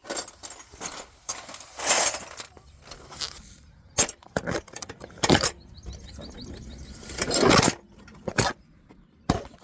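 Handling noise of a hand tool against metal: irregular sharp clicks and knocks, with two longer scraping rustles, one about two seconds in and one past seven seconds.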